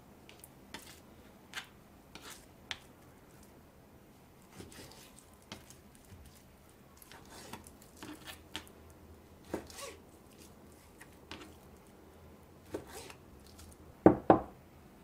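A kitchen knife slices raw chicken breast into thin strips on a plastic cutting board, with irregular soft taps and clicks of the blade against the board. Near the end come two louder knocks, from a glass bowl set down on the wooden board.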